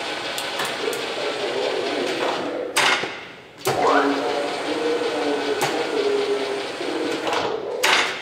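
Whacheon WL460 centre lathe running, its headstock gearing giving a steady whine. Near three seconds in there is a clunk and the sound dies away as the spindle stops. Soon after it starts again, rising in pitch as it spins up, and another clunk comes near the end.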